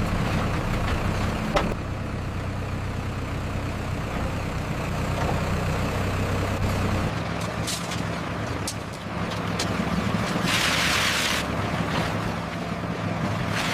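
Heavy vehicle or machine engine running steadily, its low hum changing note about seven seconds in. A short hiss of released air sounds about ten and a half seconds in, along with a few light clicks.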